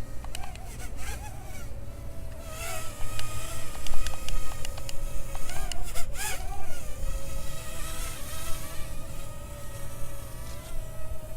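Parrot Mambo mini drone's propellers buzzing with a steady whine whose pitch wavers up and down as the drone corrects against gusts, strongest about a third of the way in and again a little past halfway. Wind rumbles on the microphone underneath.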